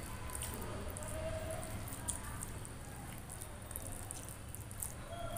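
Fingers mixing cooked rice with potato masala curry on a plate: soft, wet squishing with many small scattered clicks, over a steady low hum.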